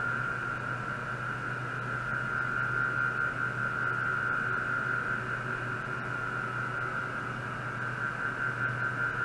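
Ultrasonic probe running in a water-filled stainless steel bowl: a steady high-pitched whine over a hiss, with a low hum beneath.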